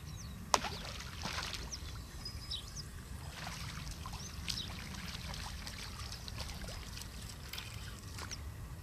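Quiet outdoor ambience by the water: a steady low wind rumble with scattered bird chirps, and one sharp click about half a second in.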